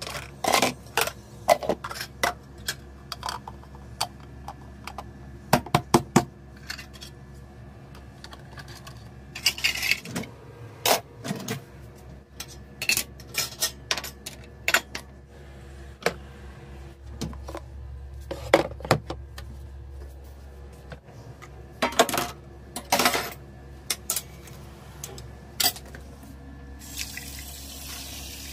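Dishes and plastic containers being picked up and set down around a dish rack and sink: irregular clacks and knocks. Near the end the kitchen tap is turned on and water runs into the stainless steel sink.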